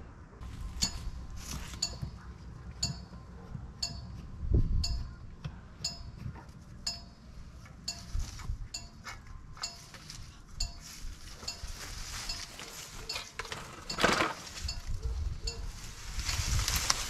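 A hot lawn mower muffler clinking as it cools: the metal changes shape as it cools and snaps or pops. The clinks are sharp metallic pings at an irregular pace of about one a second. Near the end a garden hose rustles as it is dragged through weeds and grass.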